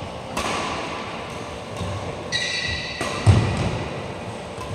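Two sharp badminton hits, racket on shuttlecock, about two and a half seconds apart, echoing in a large hall. A brief high squeak comes just before the second hit, and a thud right after it.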